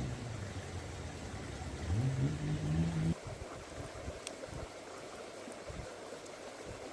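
A low, engine-like hum that steps up in pitch about two seconds in and cuts off abruptly just after three seconds, leaving the steady rushing of a stream with a few soft low thumps.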